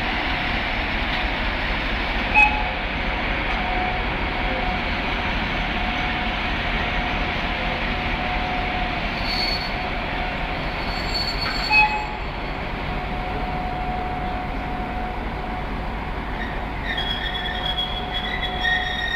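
Passenger train behind a class 754 diesel locomotive rolling into the station: a steady rumble of wheels on rail with thin, drawn-out wheel squeals, two short louder squeaks about two and twelve seconds in, and higher squealing near the end as the train slows on arrival.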